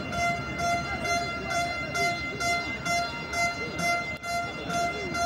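Football stadium crowd noise with a fan's horn sounding one steady note over and over, about two short blasts a second.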